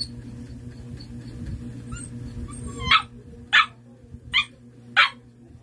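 Siberian husky puppy giving five short, high barks, spaced about half a second to a second apart, starting about three seconds in. The five barks are its trained answer for a black card.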